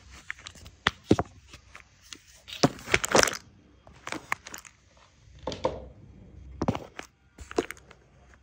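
Handling noise close to the microphone: scattered knocks, scrapes and rustles as the phone is set down and the box and its clay pieces are handled, loudest in a cluster about three seconds in.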